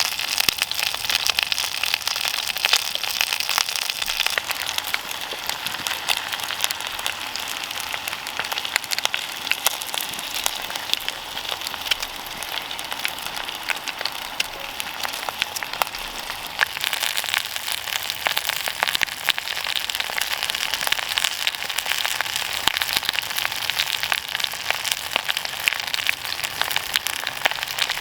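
Campfire crackling and popping steadily: a dense run of sharp snaps over a hiss.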